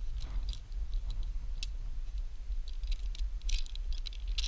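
Scattered light metallic clicks and ticks of climbing gear (carabiners and quickdraws on the harness) knocking together as the climber moves on the rock, over a low steady rumble.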